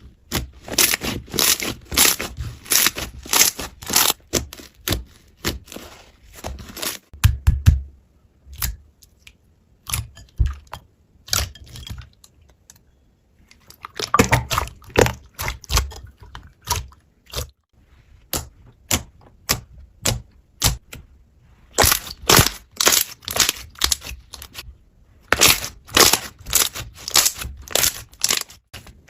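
Slime being squeezed and pressed by hand, giving rapid crackling clicks and pops in bursts of a few seconds, with short pauses between them.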